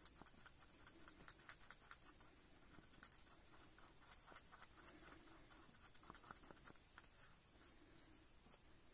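Faint scraping and ticking of a stir stick against the inside of a small mixing cup as UV resin is stirred with a couple of drops of white acrylic paint, in quick irregular strokes.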